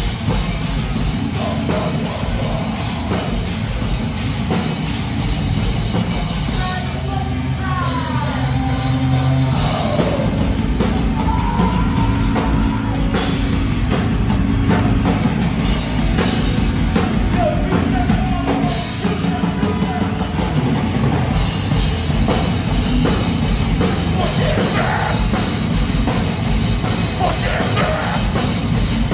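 A heavy rock band playing live at full volume: distorted electric guitars, bass and a pounding drum kit, with vocals over the top.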